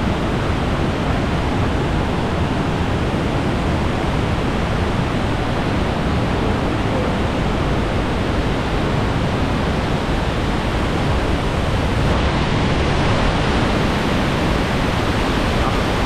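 Cascata del Varone waterfall pouring down inside its narrow gorge: a loud, steady rush of falling water.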